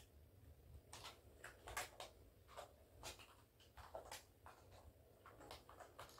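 Near silence: room tone with faint, scattered short rustles and light knocks.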